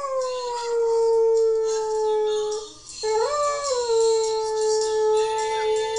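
A dog howling: two long howls. The first slides slowly down in pitch and breaks off after about two and a half seconds. The second starts half a second later with a brief rise in pitch, then holds level.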